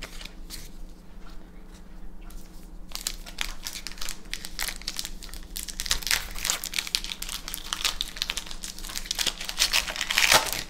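Foil Magic: The Gathering booster pack wrapper being opened and crumpled by hand. A few light clicks come first, then dense crinkling from about three seconds in, loudest near the end.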